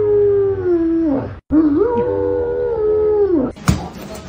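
Dog howling: two long drawn-out howls, each dropping in pitch as it ends, with a short break between them. Near the end come a few sharp knocks.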